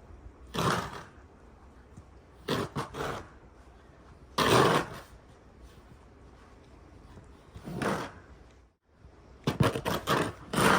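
Snow shovel scraping and scooping heavy snow, several strokes a couple of seconds apart, the last ones coming in a quick cluster near the end.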